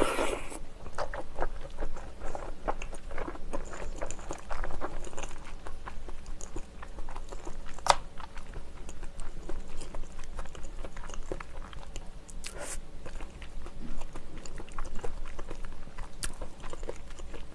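Close-miked chewing of spicy tteokbokki, chewy rice cakes in sauce, eaten with the mouth closed: soft wet smacks and squishes throughout. A few sharper clicks stand out, at about 8, 12 and 16 seconds in.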